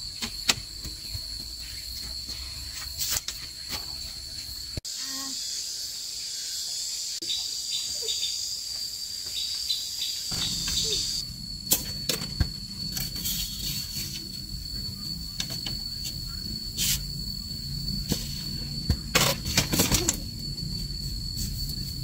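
Insects trill steadily in the surrounding forest, a single high unbroken tone. Over it come scattered sharp clacks and taps of split bamboo strips being woven into a bamboo wall, a cluster of them near the end.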